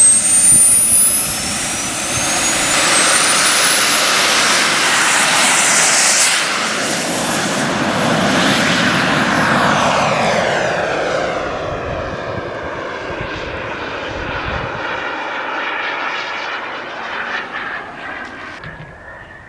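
Radio-controlled model jet flying past: a high whine climbs in pitch over the first few seconds under a loud rushing noise, then the sound slowly fades as the jet flies away.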